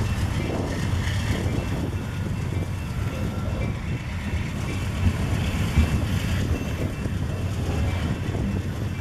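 Two GE Dash-9 diesel locomotives running, a steady low engine rumble.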